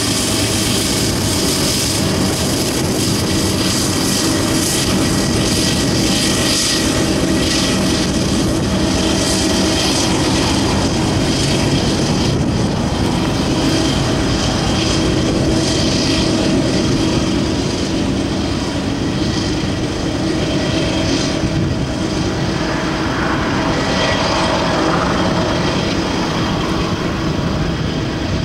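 Loaded coal hopper cars of a Union Pacific coal train rolling past: a loud, steady rumble of steel wheels on rail, with a few steady high ringing tones running through it.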